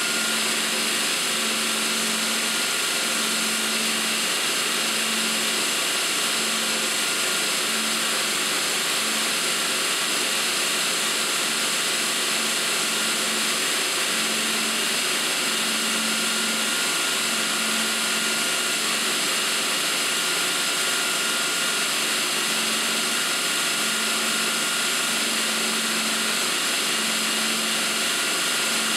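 Burr King belt grinder running, its abrasive belt grinding the point of a steel drill bit held against the contact wheel. Steady grinding noise with a faint high whine over it and a lower tone that comes and goes about once a second.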